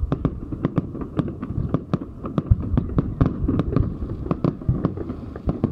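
Fireworks display: aerial shells bursting overhead in quick succession, a rapid, uneven string of bangs, several a second.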